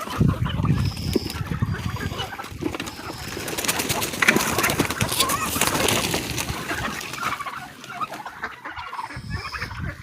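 A flock of backyard chickens clucking while feeding, busiest and loudest in the middle, with a low rumble in the first second or so.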